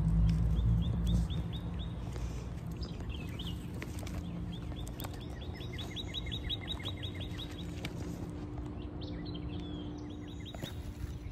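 A bird calling in several runs of quick, repeated high chirps, the longest lasting a few seconds, over a steady low hum and outdoor background noise.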